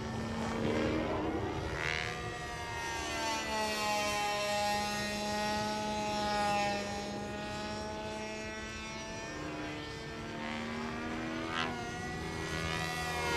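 Radio-controlled helicopter with a 29cc two-stroke gasoline engine flying aerobatics overhead: the engine and rotor note drifts up and down in pitch as it manoeuvres. There are brief swooping sounds about two seconds in and shortly before the end.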